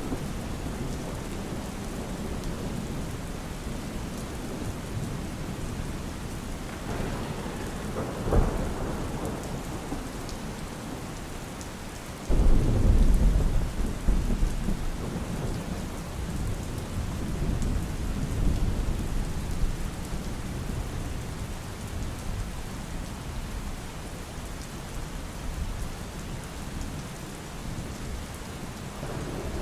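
Steady heavy rain with thunder: a sharp crack about eight seconds in, then a loud low rumble that breaks in suddenly a little later and fades away over several seconds.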